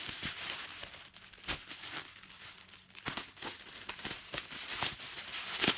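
Plastic packaging crinkling and rustling as items are handled and unwrapped by hand, with a louder crackle near the end.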